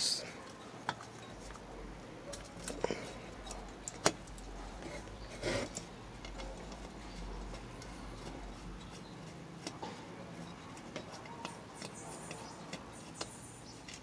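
Scattered light clicks and metallic taps as a small socket driver and fingers work the tiny screws holding the motor inside the metal base of an old, rusty Oster blender. One louder tap comes about four seconds in.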